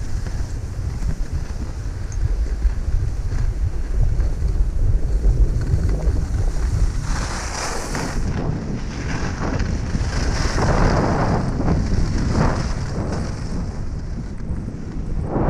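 Wind buffeting the microphone as a steady low rumble. From about seven seconds in, the hiss and scrape of Head skis sliding on firm snow joins it, swelling with each turn.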